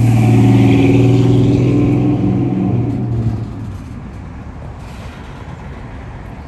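Diesel freight locomotive engine running with a loud, steady low drone that dies away about three and a half seconds in. After that only the rumble of freight cars rolling on the rails is left.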